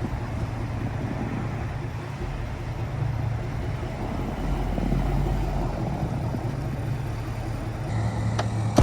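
An engine idling steadily with a low hum, and a sharp click near the end.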